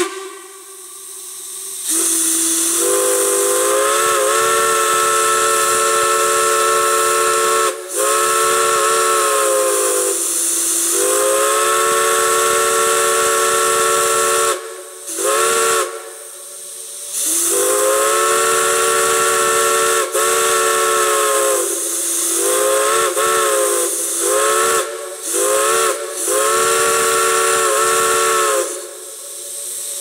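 Chime steam whistle on a steam manifold, blown in about nine blasts, long and short, each sounding a chord of several notes. The notes bend at the start and end of each blast as the valve opens and closes. Steam hisses along with the whistle.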